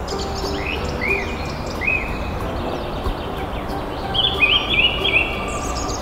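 Birds chirping over a steady background hiss: a few short rising chirps in the first two seconds, then a quick run of chirps about four to five seconds in.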